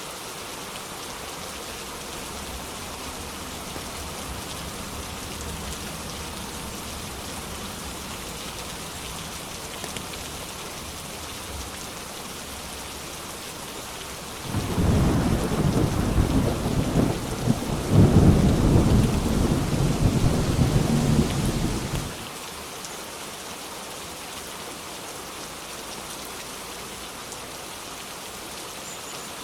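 Steady rain falling, with a long rolling rumble of thunder about halfway through that lasts several seconds and cuts off suddenly.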